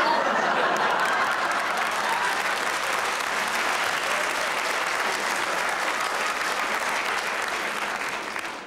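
Studio audience applauding, a steady clapping that dies away near the end.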